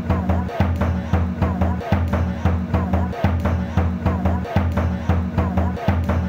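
Music with a fast, even drum beat over a deep bass line. The pattern repeats about every second and a quarter.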